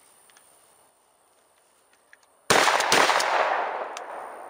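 A Remington Sportsman 12 pump-action shotgun fires one loud shot about two and a half seconds in, and its echo rolls away over about two seconds. Faint clicks of shells being handled come just before it.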